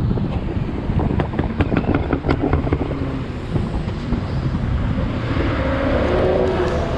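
BMW car engines running as a line of cars gets ready to pull out, with a run of sharp crackles in the first three seconds and the engine sound building near the end.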